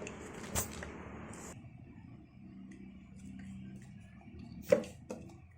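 Electric mixer grinder briefly dry-grinding whole black pepper and cumin, cutting off sharply after about a second and a half. A faint steady hum follows, then two sharp knocks near the end.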